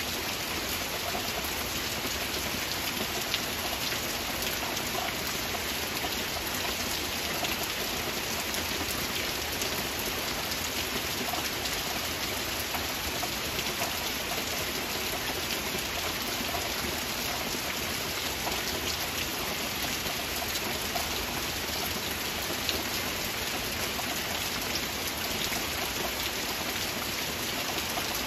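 Heavy rain falling steadily: a dense, even hiss with individual drops ticking through it.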